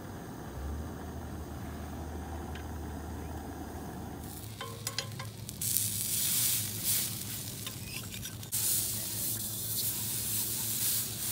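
A low steady hum for the first few seconds, then a chicken burger patty sizzling loudly on a hot griddle plate over a camping gas stove. A metal spatula taps and scrapes as it presses the patty.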